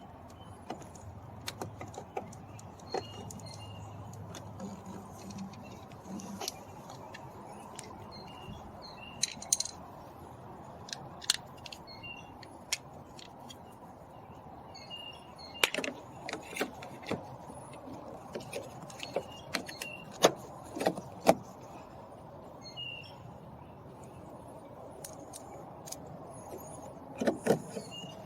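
Scattered clicks, taps and light metallic clinks of hand tools and screws being handled while a car door panel is refitted. There is a run of sharper knocks a little past halfway and another near the end, over steady low background noise.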